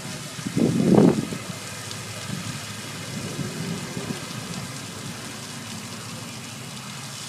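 Steady hiss of falling water, with a louder low rumble about a second in.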